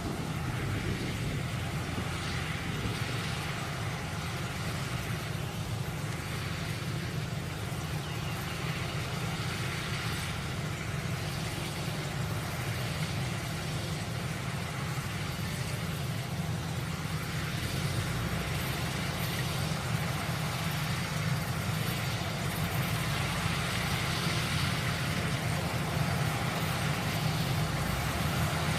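Kubota DC-105X combine harvester running steadily: a low diesel engine drone with a hiss of machinery above it, growing a little louder in the second half.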